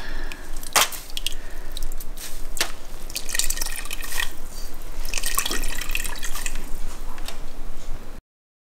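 Pomegranate dye bath dripping and splashing back into an enamel pot as a wet skein of yarn is lifted out and squeezed over it, in many irregular drips. It cuts off suddenly near the end.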